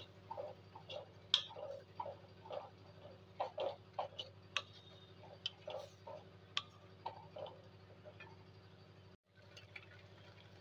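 Spatula stirring grated pumpkin cooking in water in a metal kadai: irregular soft clicks and plops, two or three a second, over a steady low hum.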